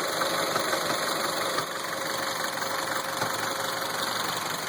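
1.4 TSI EcoFuel turbocharged four-cylinder engine idling steadily, with a light knock from a faulty flywheel, slightly less now that the engine has warmed up a little.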